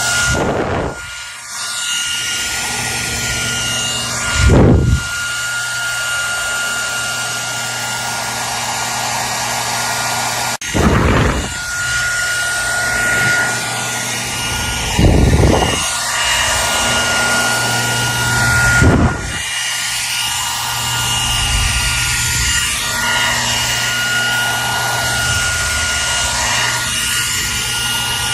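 Hair dryer running steadily: a constant rush of air over a motor hum with a thin high whine. About five times, briefly, the sound surges louder and deeper in a short whoosh.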